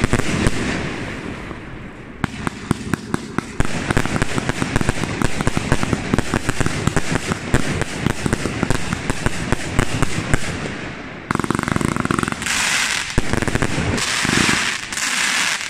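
A Volt 'Fullmoon Party' fireworks compound cake of up to 30 mm calibre firing a fast, unbroken string of shots and bursting shells. About eleven seconds in, the firing thickens into a dense, steady hiss and crackle that surges loudly a few times near the end.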